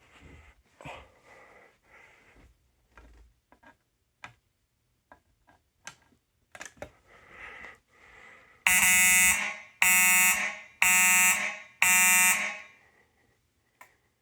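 Fire alarm horn sounding four short blasts about one a second, starting a little past halfway. This is a walk-test signal in which the number of pulses codes the zone of the detector just tripped. Faint clicks and handling noise come before it.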